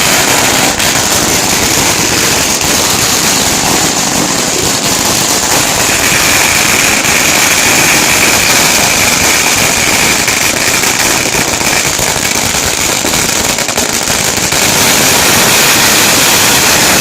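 A Chinese firecracker roll of about 100,000 crackers going off in a loud, continuous, densely packed crackle with no breaks.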